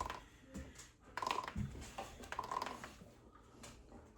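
Light, irregular clicking and tapping of a vinyl Funko Pop bobblehead being shaken by hand, its head knocking as it wobbles.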